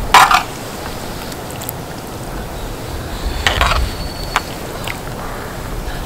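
Eating sounds from a plate of spicy braised chicken with glass noodles: two short noisy bursts of slurping or utensil noise, one just after the start and one about three and a half seconds in, then a sharp click, over a steady low rumble.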